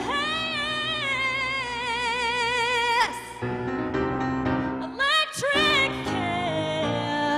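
Female singer holding a long note with wide vibrato over piano chords. After about three seconds the voice drops out and the piano carries on alone, and a short sung phrase comes in about five seconds in.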